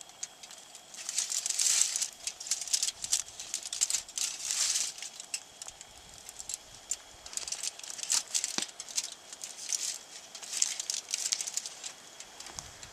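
Foil butter wrapper and a sheet of aluminium foil crinkling in repeated bursts as a block of butter is unwrapped and handled.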